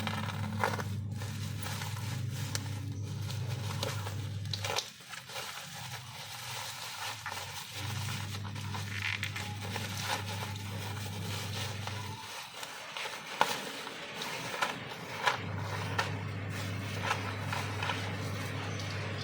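Plastic packaging of a cosmetics parcel crinkling and crackling as it is handled and unwrapped, with irregular sharp clicks. A steady low hum comes and goes underneath.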